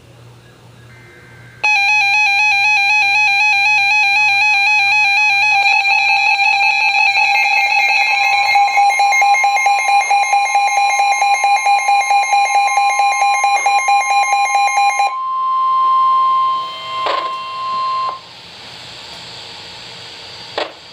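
Emergency Alert System attention tones: loud, rapidly pulsing electronic beeping that starts about two seconds in, with a second, higher tone joining partway through, then a steady single tone for about three seconds that cuts off abruptly. It signals a severe thunderstorm warning about to be read.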